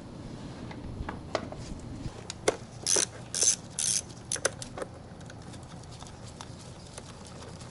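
Ratchet wrench working in three short ratcheting runs, among scattered clicks of metal tools.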